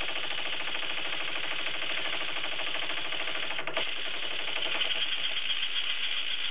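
Homemade wooden wobbler (oscillating-cylinder) engine running on compressed air: a rapid, even chuffing and knocking as air is let in and exhausted with each turn of its hockey-puck flywheel. There is a single click a little past halfway, and the beat grows louder and more uneven near the end.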